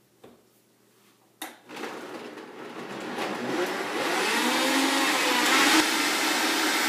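High-powered countertop blender switched on with a click about a second and a half in, then running up to speed and pureeing chopped greens, vegetables and water. The motor grows louder and rises in pitch over a couple of seconds, then runs steadily at full speed.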